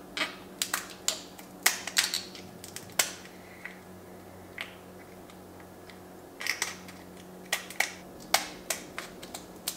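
Boiled lobster shell being cracked and snipped apart with kitchen shears: sharp cracks and clicks in two bursts, a handful in the first few seconds, then a pause, then another run near the end.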